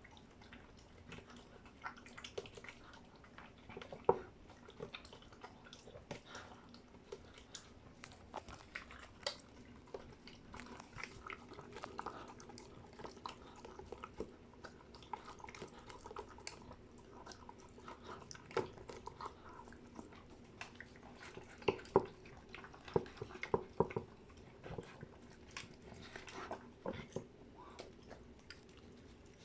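A dog eating its food: irregular chewing and crunching with clicks of its teeth throughout, and a few louder bites, most of them bunched together past the middle.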